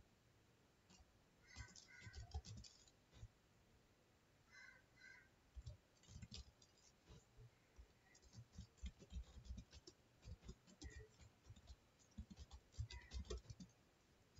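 Faint, irregular clicking of computer keyboard keys being typed, in short bursts with pauses between them.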